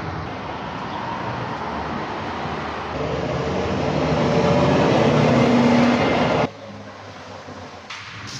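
A heavy vehicle running: a steady engine-and-road noise that grows louder about three seconds in and then cuts off suddenly. A quieter stretch with a couple of clicks follows near the end.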